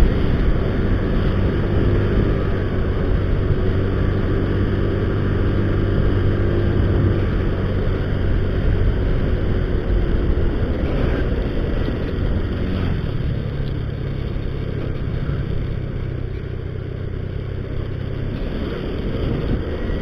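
Motorcycle engine running steadily while riding. The engine note changes about two-thirds of the way through.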